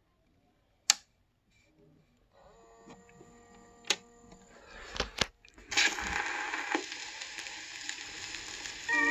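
Victrola suitcase record player being started on a 78 rpm record: a sharp click about a second in, a few more sharp clicks as the stylus is set down, then steady surface hiss from the record's lead-in groove. Hammond organ music begins right at the end.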